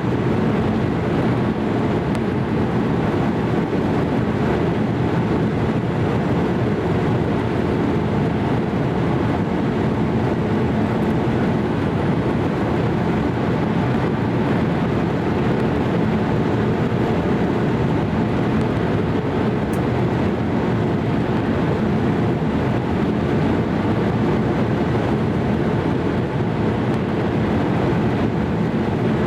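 Steady cabin noise inside a Boeing 787-8 airliner in flight: the even drone of airflow and its Rolls-Royce Trent 1000 engines, heard from a window seat.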